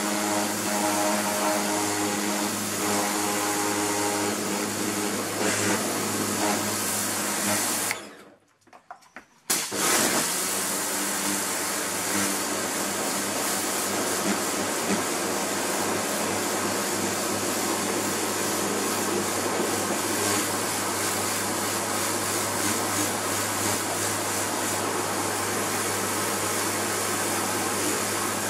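Kärcher electric pressure washer running, its motor humming steadily under the hiss of the high-pressure water jet spraying a plastic sun lounger. The sound cuts out for about a second and a half some eight seconds in, then starts again.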